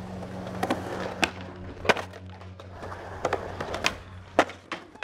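Skateboard wheels rolling on a concrete skatepark, broken by a string of sharp clacks and pops as the board's tail and wheels strike the ground during tricks.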